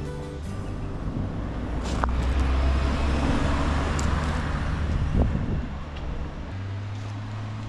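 A motor vehicle passing on a road: engine and tyre noise swell over a few seconds, then fade, leaving a steady low hum near the end.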